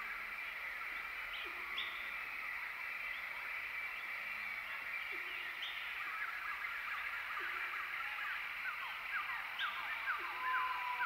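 Forest bird chorus: many overlapping short chirps and whistles over a steady hum of calls, growing busier in the last couple of seconds.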